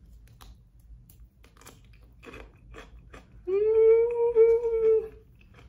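Faint crunching as a mouthful of cucumber is chewed, then a closed-mouth "mmm" hum of enjoyment, held steady for about a second and a half from about three and a half seconds in; the hum is the loudest sound.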